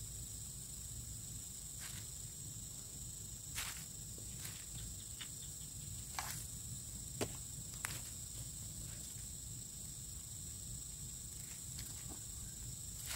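Steady high-pitched insect chorus, with a few soft scattered clicks and rustles from close by.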